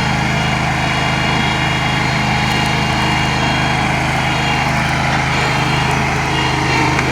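Backhoe's engine running steadily with an even, unchanging note.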